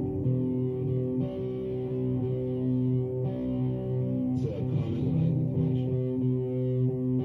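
Guitar music playing through a wooden floor-standing hi-fi loudspeaker, with long held notes that change every second or two.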